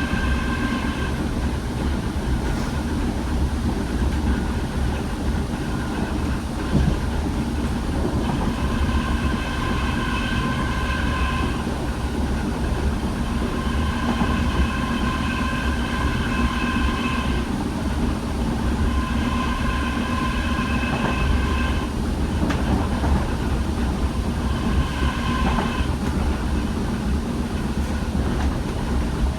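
Electric DART train, a class 8100 unit, running along the line: a steady rumble of wheels on rails, with a high ringing tone that comes and goes five times.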